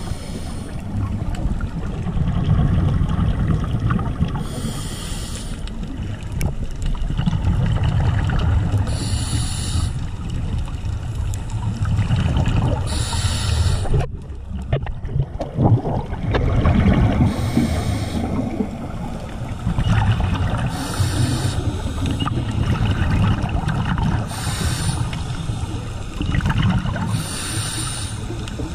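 Scuba diver breathing through a regulator, heard underwater: a burst of rushing exhaled bubbles about every three to four seconds over a steady low water rumble.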